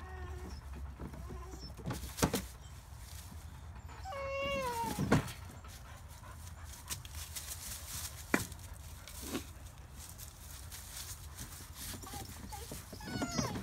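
Dogs nosing and scrabbling at a plastic garden hose reel, with a few sharp knocks, and a wavering dog whine lasting about a second around four seconds in.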